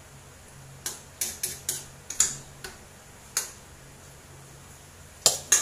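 Metal spoon clinking against a stainless steel cooking pot while stirring, in irregular sharp taps with two close together near the end.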